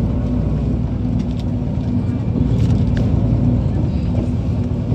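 Steady low rumble of a running vehicle, with voices in the background.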